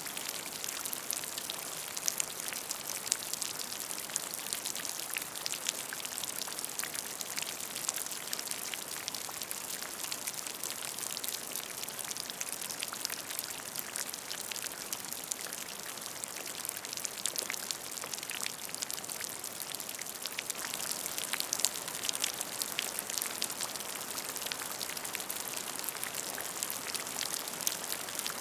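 Steady rain with many close, distinct raindrops pattering on a surface, a continuous hiss of drops with frequent sharp ticks and no thunder.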